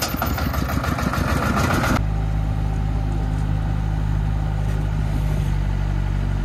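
A công nông three-wheeled dump truck's diesel engine running noisily with a rapid beat as its bed is tipped. About two seconds in this gives way abruptly to the steady, low hum of a Doosan DX55 wheeled excavator's diesel engine running while it loads soil.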